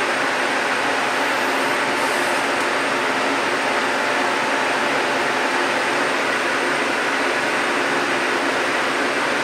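Steady, loud hiss with a faint, thin high-pitched whine above it and a low hum beneath.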